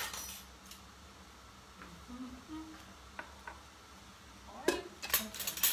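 Clicks and knocks of kitchen things being handled and set down: a click at the start, two light taps past the middle, and a quick cluster of knocks and clatter near the end.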